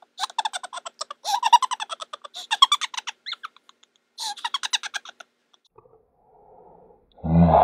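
A woman giggling in rapid, very high-pitched bursts of laughter that break off about three seconds in, with one more short burst a second later. Near the end a loud, low sound suddenly cuts in.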